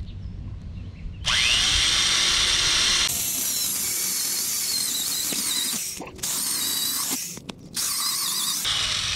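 Old corded Craftsman electric drill boring into the side of a log for a rocket stove's air channel. It starts about a second in with a rising whine, then runs under load in several bursts with two brief stops.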